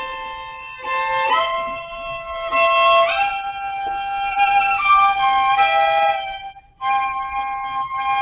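Violin playing a slow melody of long, held notes that step from pitch to pitch, with a brief break about two-thirds of the way through.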